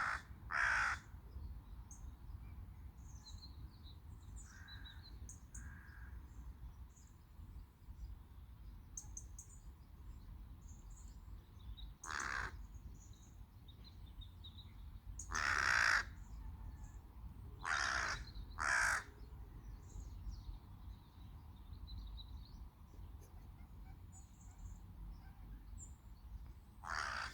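Crows cawing: about five harsh single caws spaced irregularly, two in quick succession about two-thirds of the way through. Faint high chirps of small birds come between them.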